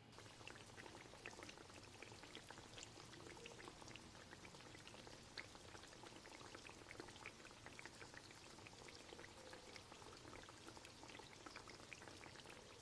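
Chicken shashlik skewers sizzling faintly in a little oil in a pan on medium-low heat, with scattered small crackles and pops.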